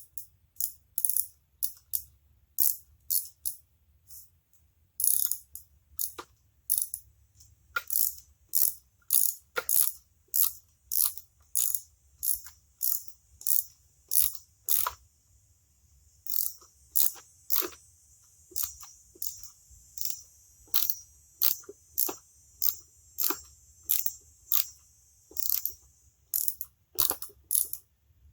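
Hand ratchet wrench clicking in short back-and-forth strokes, about one and a half a second, as a bolt is turned out on an engine.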